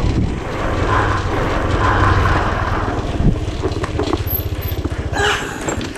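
Small motor scooter engine running steadily as the scooter rides along at low speed.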